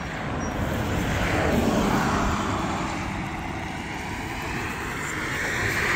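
Tyre and road noise from a Chevrolet Bolt EV electric car, with no engine sound, as it approaches on asphalt and slows to a stop close by. Highway traffic passes behind it, and the noise swells again near the end.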